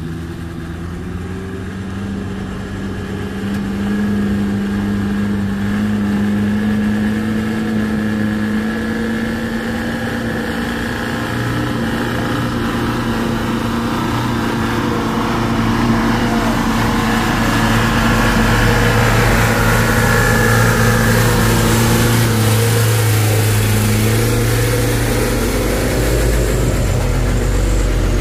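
Diesel engines of Mitsubishi Canter light trucks labouring up a steep dirt grade. The steady drone grows louder as the trucks draw near and is loudest in the last dozen seconds.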